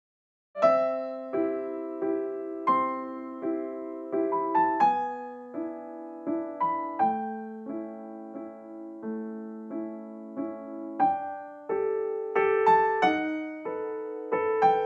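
Solo piano background music, a gentle melody of single notes and light chords, starting after a brief silence about half a second in.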